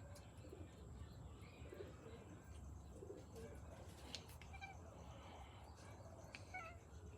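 Near silence over a low hum, with a few faint bird calls: soft low coos and a brief chirp near the end.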